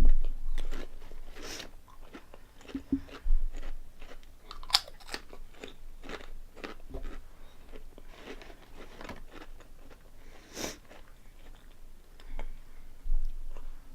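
Close-up crunching and chewing of crisp ribbed potato snacks (Honey Tong Tong): irregular sharp crunches, with harder bites at the start, about five seconds in and about eleven seconds in.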